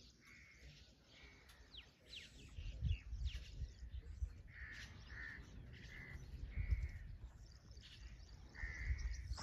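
Crows cawing again and again, faint, over a low uneven rumble.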